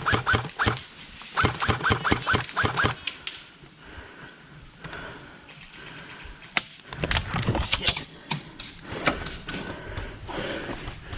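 Airsoft gun fired in quick single shots, two strings of snapping shots about four or five a second, the longer one lasting about a second and a half. Scattered knocks and a low rumble of movement follow.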